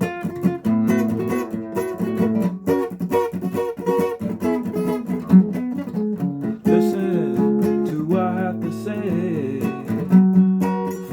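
Acoustic guitar strummed in repeated chords as a song accompaniment, with a voice singing along over the second half.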